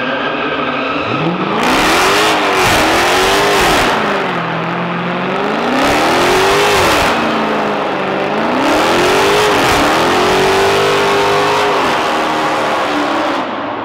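Dodge Challenger doing a burnout. The engine is revved up and down about five times while the rear tyres spin and squeal against the concrete.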